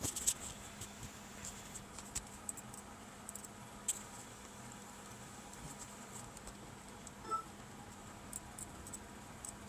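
Faint scattered light clicks and taps, irregular and a few a second at most, over a low steady hum.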